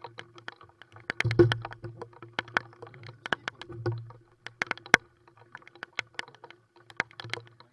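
Irregular sharp clicks and knocks, a few to several a second, over an intermittent low hum.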